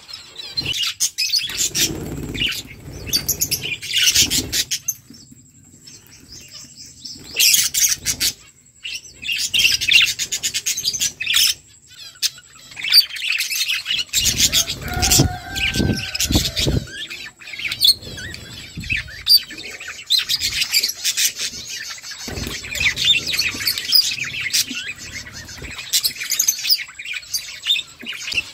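A flock of budgerigars chirping busily, many short overlapping chirps, with scattered clicks among them.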